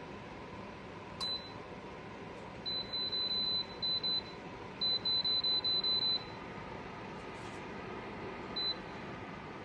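Dreo ceramic space heater's control panel giving short high beeps as its buttons are pressed: a single beep, then two runs of rapid beeps, then one more near the end. A steady hiss runs underneath.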